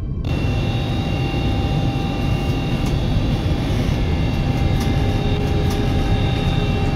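Steady low rumbling drone with a few faint sustained high tones over it, starting abruptly: an ominous horror sound bed.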